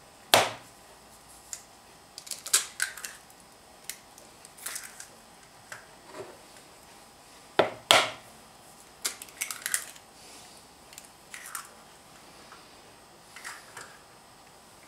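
Raw eggs being cracked open and their shells pulled apart: a sharp crack about half a second in and a close double crack just before eight seconds, with smaller crackling clicks of shell between and after.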